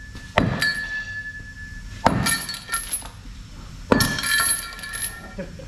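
Heavy steel pry bar striking the steel track and chain of a CAT D10R dozer: three sharp metallic clanks roughly two seconds apart, each ringing briefly.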